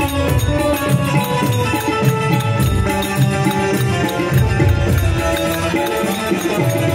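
Live Indian devotional aarti music played on harmonium and bulbul tarang (Indian banjo), with held steady notes over a repeating drum beat.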